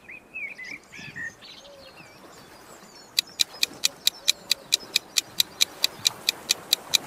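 A few short chirping sound effects in the first second or so. From about three seconds in, a quick run of evenly spaced ticks, about five a second, from a countdown-timer sound effect.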